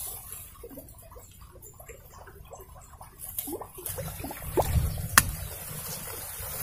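Small plops and splashes of a soft topwater frog lure twitched across a pond surface, a quick run of short plops, then a few rising bloops. A single sharp click about five seconds in, with wind rumbling on the microphone in the second half.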